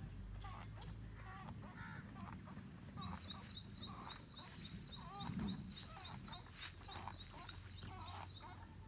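Birds calling in open farmland, with scattered short calls and, from about three seconds in until near the end, a rapid even run of high chirps, about three or four a second.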